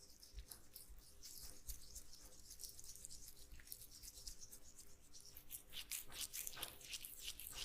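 Soft, quick rubbing strokes against the skin of a face during a face treatment, a steady run of light swishes that grows louder over the last couple of seconds.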